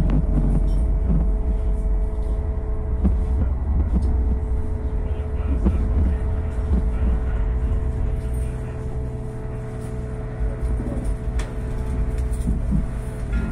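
Stadler Citylink tram-train heard from inside the car as it rolls along the track. There is a heavy low rumble with two steady whining tones from its drive, and scattered sharp clicks from the wheels and the car. The rumble eases for a while after the middle.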